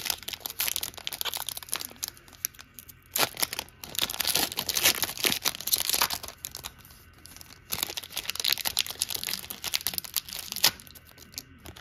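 Foil wrapper of a trading card pack being torn open and crinkled by hand, crackling in irregular bursts as the cards are pulled out.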